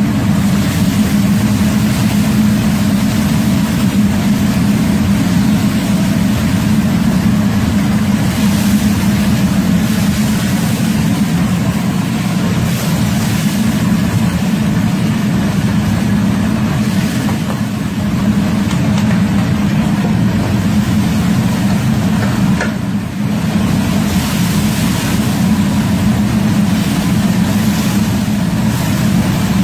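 Steady low roar of a commercial kitchen wok station under a large wok of simmering stew, with a metal ladle scraping in the wok now and then.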